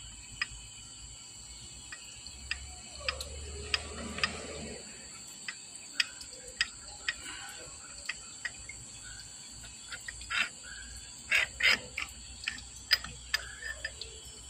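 Scattered sharp clicks and light metal knocks from steel parts being handled and fitted together: an air breaker hammer piston and its housing in a lathe chuck. A steady high-pitched whine runs underneath, and the loudest knocks come near the end.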